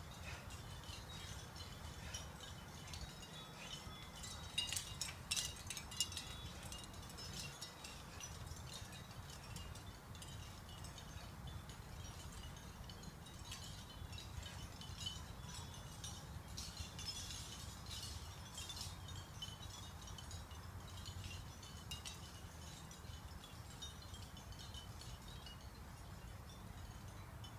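Faint metallic tinkling on and off, loudest about five seconds in and again around seventeen seconds in, over a steady low rumble.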